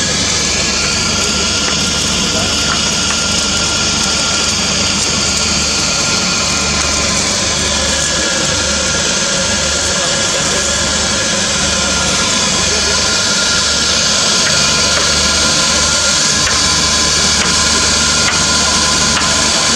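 Automatic welding machinery running steadily: a loud, continuous mechanical hum and hiss with several steady tones, unbroken throughout.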